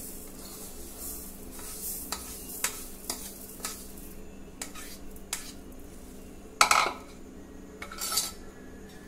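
A metal spoon scrapes and taps against a plastic bowl as roasted grains are tipped into a steel mixer-grinder jar. It makes a string of light clicks and ticks, with a louder clatter about two-thirds of the way through.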